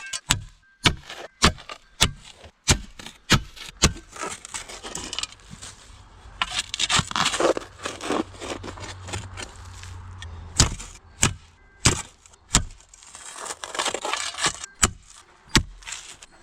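Steel pointed shovel jabbing into a rocky post hole, its blade clinking against small stones in repeated strikes about twice a second, with two stretches of scraping as it works through the rocks.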